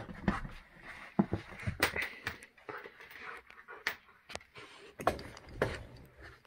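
A dog playing energetically: irregular knocks, thumps and scrabbling clicks as it jumps and scrambles about, with panting breaths.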